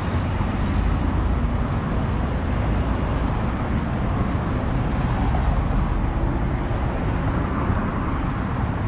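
Steady road traffic noise from cars on the road alongside, a heavy low rumble under an even hiss.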